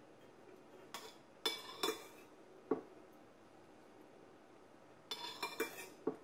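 Metal ladle clinking and scraping against a stainless steel pot as thick cream is scooped out: a few short clinks about a second or two in, then a quick cluster near the end.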